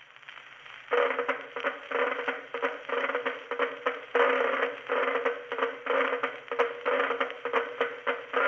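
Old-time recorded music with a thin, old-radio sound and crackle, coming in about a second in.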